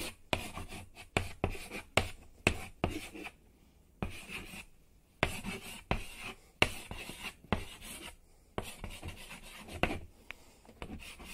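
Pen-writing sound effect: runs of quick scratching strokes, with brief pauses between runs as each line is written.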